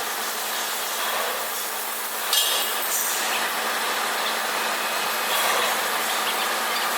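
Tire shredding machine running under load: a steady, noisy mechanical drone with a low hum, broken by a sharp metallic clink about two and a half seconds in.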